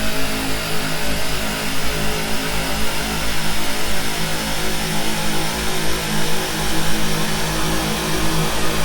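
Cinematic suspense sound effect: a loud, steady rumbling drone of sustained low tones under a dense hiss, meant to signal approaching danger.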